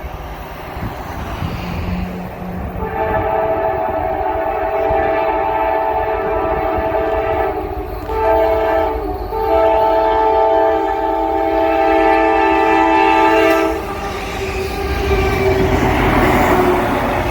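Multi-chime air horn of the lead locomotive, a GE CM44AH, sounding the grade-crossing signal: a long blast, a short one and another long one. Underneath is the low rumble of the diesel locomotives and the train's wheels on the rail, rising near the end as the train reaches the crossing.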